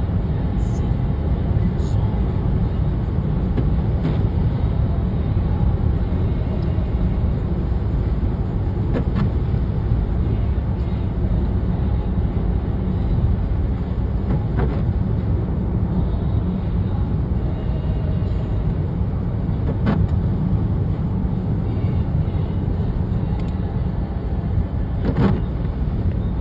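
Steady low rumble of a car's tyres and engine on wet pavement, heard from inside the cabin, with a few light clicks several seconds apart.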